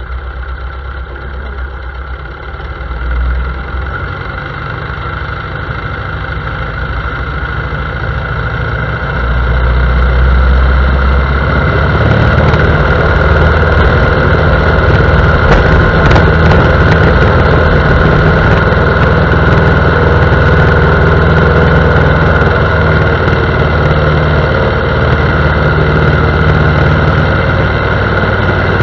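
Piper J-3 Cub's engine and propeller running, building in power over the first ten seconds or so, then held steady at high power for the takeoff.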